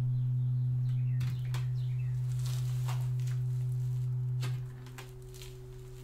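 A 125 Hz test tone from a small Bluetooth speaker plays steadily inside a box of concrete blocks covered with drywall, with a few light knocks as concrete blocks are set down on it. About four and a half seconds in the tone drops sharply in level as the box is sealed.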